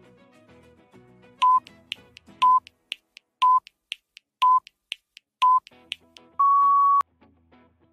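Countdown timer beeps: five short electronic beeps one second apart, then one longer, slightly higher beep marking time up, with faint ticks between them. Soft background music plays before the beeps and returns after the last one.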